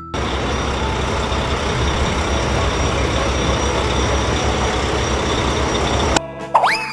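Truck engine sound effect: a steady, noisy engine rumble that cuts off suddenly about six seconds in, followed by a short rising glide near the end.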